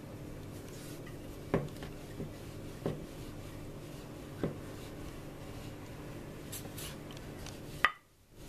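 Wooden rolling pin rolling dough out thin on a floured wooden cutting board: a soft scratchy rubbing with a few light knocks of the pin against the board. The sound cuts off briefly near the end.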